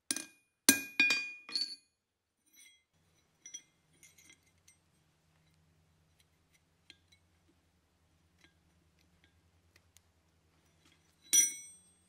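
Hand-forged steel carabiner clinking against the steel anvil face as it is handled: a quick run of sharp clinks in the first two seconds, then small faint ticks, and one more ringing clink near the end.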